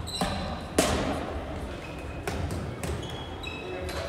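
Floorball play in a reverberant sports hall: sharp knocks from sticks and the plastic ball, the loudest about a second in, with brief high squeaks of shoes on the court floor.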